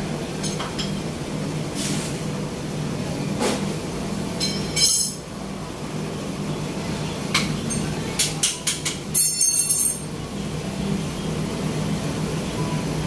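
Road traffic passing close by, cars and a motorcycle, over a steady low hum. Sharp clinks and knocks cut through it, a louder one about five seconds in and a quick cluster of them from about eight to ten seconds in.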